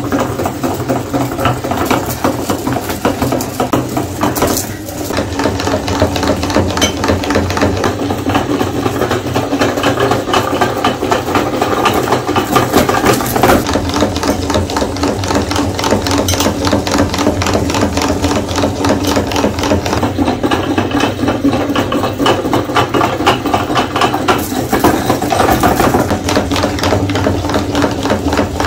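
Meat grinder running steadily, its auger and cutting plate grinding chocolate candy bars, with a fast continuous rattle; the sound dips briefly about five seconds in.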